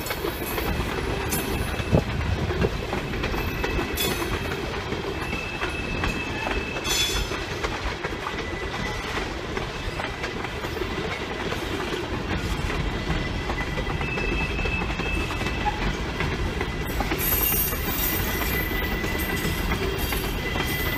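Norfolk Southern coal hopper cars rolling past on steel wheels: a steady rumble with clickety-clack clicks and a faint high wheel squeal that comes and goes.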